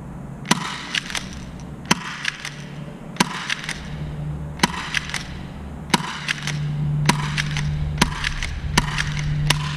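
FN FNS-9 airsoft pistol firing a string of about nine sharp shots roughly a second apart, each followed closely by one or two lighter clicks.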